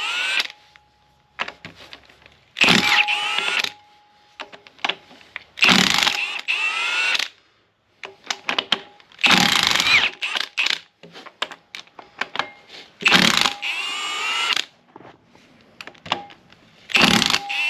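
Power tool run in short bursts of about a second, five times, its pitch rising during each burst as it spins up, with quieter gaps between.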